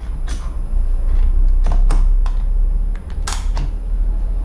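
About half a dozen sharp clicks and clacks as a pointed chisel bit is worked in the quick-lock chuck of a Huspanda HBD 2801 rotary hammer drill, the chuck sleeve pulled down and the bit drawn out or pushed home. The loudest click comes about three seconds in, over a steady low rumble.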